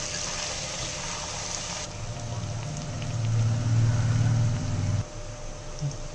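Sliced onions frying in oil in a metal pot, a steady sizzle. From about two seconds in, a low hum rises under it and cuts off suddenly about five seconds in.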